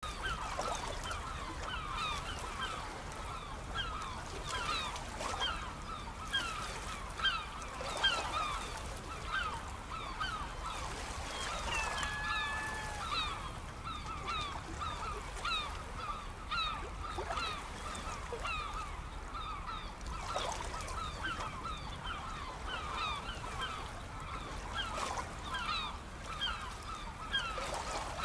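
A large flock of birds calling without pause, many short calls overlapping one another, over a steady background hiss. About twelve seconds in, one longer, level call stands out.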